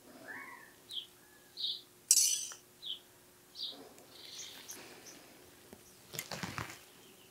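A bird gives several short, high chirps at irregular intervals against a faint steady hum. A brief rustle about two seconds in is the loudest sound, and there is another rustle near the end.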